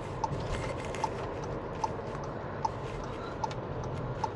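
Steady rush of tyres and wind from a car driving on a wet road, picked up by a mic mounted outside on the car. Sharp clicks are scattered through it, and a faint short tone repeats about every 0.8 s.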